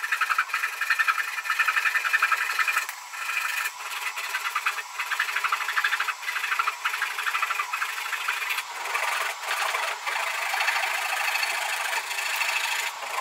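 Handsaw held flat to a pine box corner, flush-cutting the protruding ends of mahogany joint strips: quick back-and-forth strokes with a dry rasp of teeth through hardwood, broken by a few brief pauses.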